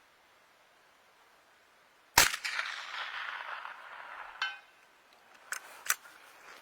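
.22 LR rifle shot about two seconds in, a sharp crack with a long echoing tail. About two seconds later comes a short ringing ping, then two light clicks.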